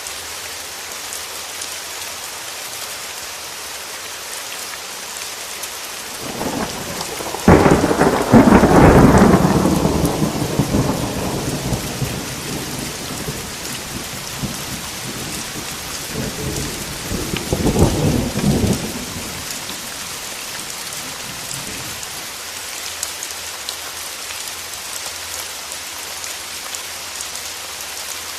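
Steady rain in a thunderstorm. About a quarter of the way in, a sharp thunderclap breaks and rumbles away over several seconds, and a second, weaker roll of thunder follows a little past the middle.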